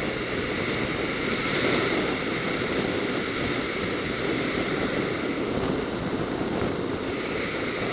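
Steady wind rush and road noise from a BMW R1200RT touring motorcycle cruising at highway speed, with wind buffeting the microphone.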